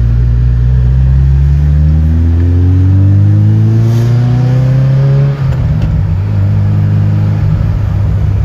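1988 Ferrari Quattrovalvole cabriolet's V8 engine accelerating under load on the road, its pitch rising for about five seconds. It drops briefly at a gear change, then runs on at a steadier, lower pitch.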